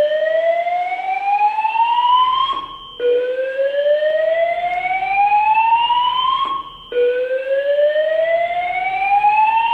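Fire alarm sounding a slow-whoop evacuation tone. A single tone rises steadily over about three and a half seconds, cuts off, and starts again after a short gap, repeating about every four seconds.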